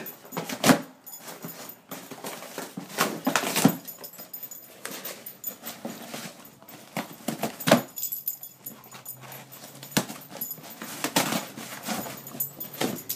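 A Weimaraner tearing at a cardboard box with its mouth and paws: irregular ripping, scraping and crunching of cardboard.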